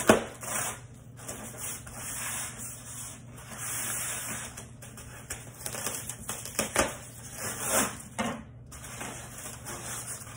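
Styrofoam packing case being opened by hand: the tape along its seam is worked loose and foam scrapes and rubs against foam. There is a sharp knock right at the start and a few more clicks near the end.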